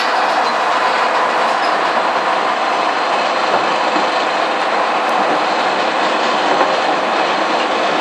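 Large circular breaking-down saw running steadily as a log on the mill's carriage is fed toward the blade and starts into its end, with the mechanical noise of the saw and carriage.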